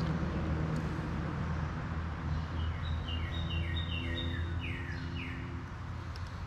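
A songbird singing a quick run of short, high, clear notes that step up and down, ending in two downward-slurred notes, starting about two seconds in, over a steady low background rumble.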